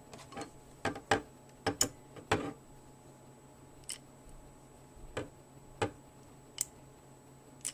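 Scattered sharp metal clicks and knocks from a hand ratchet wrench being handled and turned over. A quick cluster in the first two and a half seconds, then single clicks every second or so.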